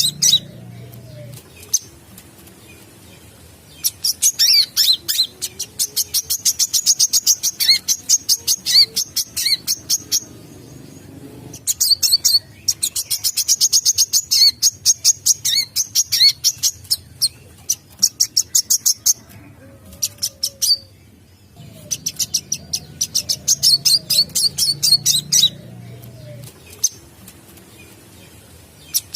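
Sunbird song: long bouts of rapid, high-pitched twittering notes, each bout lasting several seconds, broken by short pauses, about four bouts in all.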